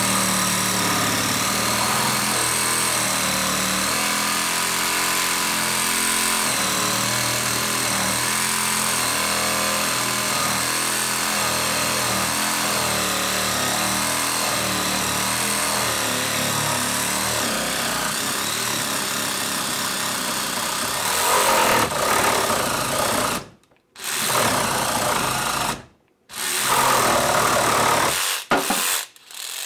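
DeWalt Atomic DCS369 20V brushless compact reciprocating saw cutting through a wooden 2x4 with its stock DeWalt blade, running steadily under load. In the last few seconds the saw stops and restarts several times as the cut finishes.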